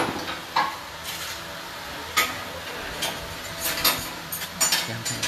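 Scattered light clicks and clinks of handling, about eight sharp ticks spread unevenly, bunched together in the second half.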